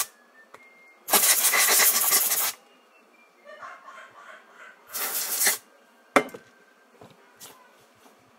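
Two bursts of compressed air blown at the phone's speaker grille to clear out gunk: a steady hiss of about a second and a half, then a shorter one about five seconds in. Light scratching and a few sharp clicks of handling come between them.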